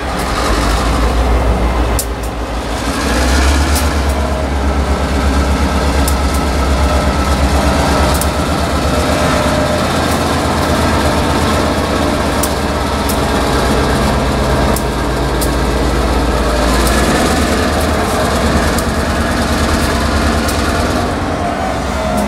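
Norfolk Southern diesel locomotive running with a steady low engine drone as it moves slowly past with hopper cars. The drone swells about three seconds in, and sharp clicks are scattered through it.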